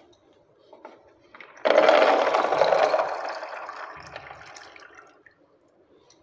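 A bowlful of small kair berries poured into a plastic jar of water: a sudden splashing rush that starts about a second and a half in and trails off over the next few seconds.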